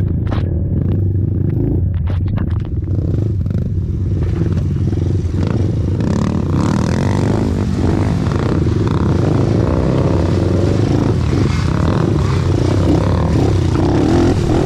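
Racing ATV engines running, with sharp clattering knocks during the first few seconds.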